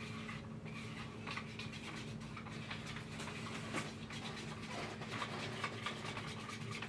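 Epoxy resin and hardener being stirred by hand in a mixing cup: irregular scraping and rubbing as the stirrer works the mix and scrapes the cup's sides to blend in the darker hardener, over a steady low hum.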